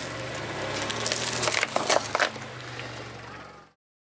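A car tyre rolling over sugarcane stalks, crushing them with several sharp cracks and splintering over a steady low engine hum. The sound cuts off suddenly near the end.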